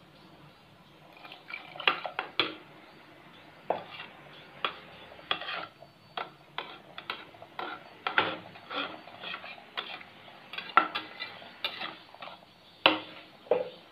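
A slotted metal spatula stirring mushrooms in a watery masala inside an aluminium Prestige pressure cooker. It scrapes and clinks against the pot at an uneven pace, with a handful of sharper knocks.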